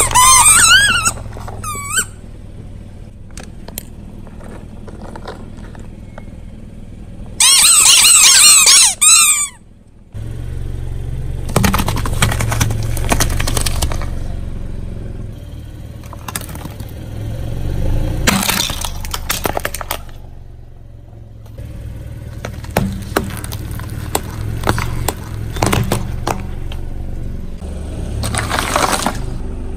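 Rubber spiky squeeze balls squealing in wavering pitches as a car tyre rolls onto them, briefly at the start and again for about two seconds around eight seconds in. After a short drop-out, the car's engine runs with a low hum under repeated bursts of crunching and crackling as the tyre crushes more objects.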